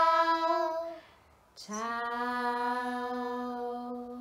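A woman and a girl singing the long held closing notes of a goodbye song, unaccompanied. One note stops about a second in; after a short pause a lower note is held for about three seconds.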